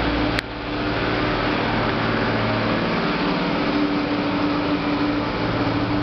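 Steady hum and whoosh of a running electric fan, with one sharp click about half a second in.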